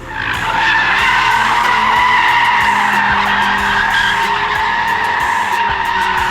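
2022 Audi RS3's tyres squealing steadily as the car skids, a continuous screech lasting several seconds, with a fainter engine note underneath.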